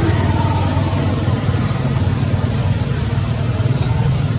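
A steady low engine rumble, like a motor idling, with a faint thin high tone above it.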